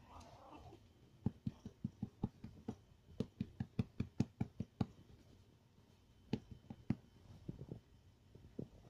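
A hand patting a cat's side: a quick, even run of soft thumps, about five a second, then after a pause a few scattered pats.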